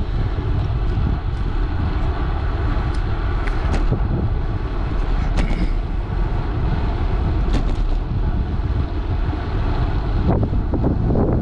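Wind rushing over the microphone and tyre noise of a bicycle rolling along an asphalt street, steady throughout, with a few faint clicks and growing rougher near the end.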